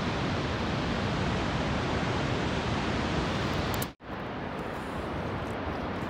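Steady rushing noise of the Vøringsfossen waterfall, a big waterfall heard across the gorge. It cuts out for an instant about four seconds in, then returns slightly quieter.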